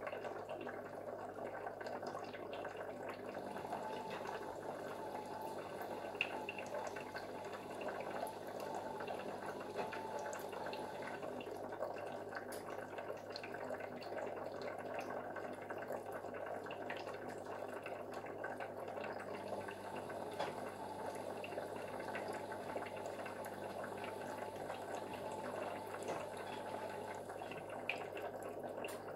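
Steady trickling and bubbling of aquarium water, with a constant low hum and scattered small ticks.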